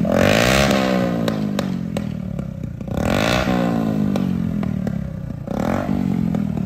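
Bajaj Platina's single-cylinder four-stroke engine revved in short throttle blips through a loud aftermarket exhaust with no DB killer fitted. Each blip rises sharply in pitch and falls back toward idle: one is falling away at the start, and fresh blips come about 3 s and 5.5 s in, with a few sharp clicks along the way.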